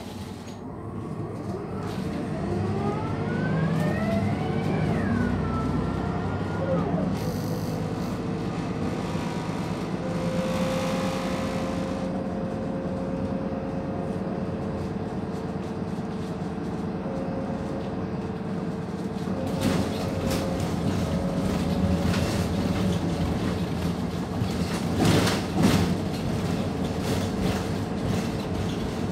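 MAN D0836 six-cylinder diesel and ZF automatic gearbox of a Van Hool NewA309 city bus, heard from inside the bus while driving. The pitch rises as the bus accelerates and drops back at a gear change about five seconds in, then holds a steady note. There is a hiss about ten seconds in, and rattles and knocks near the end.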